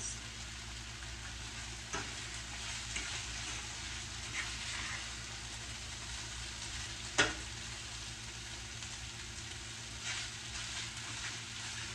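Food frying in a pan with a steady sizzle, and a fork clicking against the pan a few times, loudest about seven seconds in.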